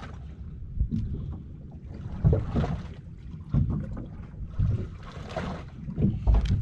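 Wind buffeting the microphone on a small open boat at sea, with water noise against the hull, two short swells of hiss and a few low thumps, the heaviest near the end.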